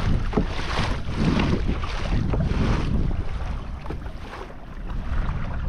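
Wind buffeting the microphone, with water splashing and sloshing beside a kayak hull in uneven bursts; it eases briefly about four seconds in.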